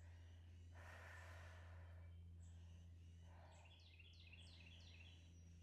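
Near silence: a steady low hum, two soft breaths, and a quick run of about five faint, falling bird chirps about four seconds in.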